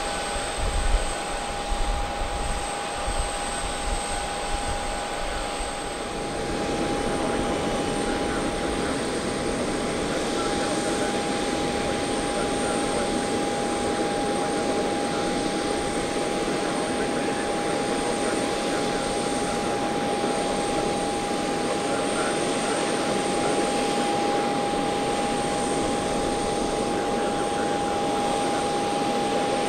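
Boeing C-40C jet running on the ground: a steady high whine over a rushing jet noise that grows louder about six seconds in and then holds. A few low thumps in the first seconds.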